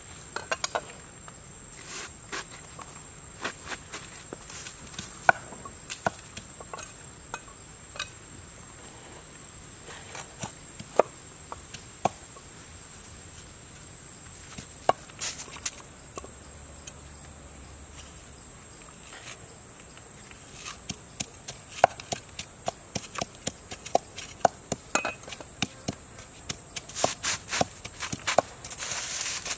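Irregular chopping knocks of a cleaver slicing cucumber and a wooden pestle pounding in a mortar. The knocks come thick and fast near the end, over a steady, high insect buzz.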